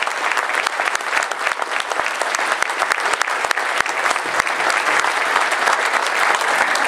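Large seated audience applauding steadily, a dense patter of many hands clapping at the end of a talk.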